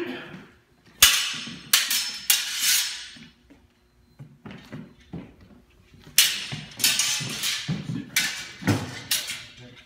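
Training longswords clashing blade on blade in sparring: sharp metallic clangs, each ringing briefly. There are three or four strikes between about one and three seconds in, then a quicker run of strikes from about six seconds in.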